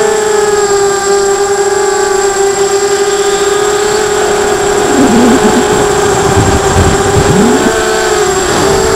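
Emax 250 racing quadcopter's four brushless motors and propellers whining at a steady pitch, heard from the onboard camera. A low rumble comes in about halfway through, and the pitch dips briefly near the end.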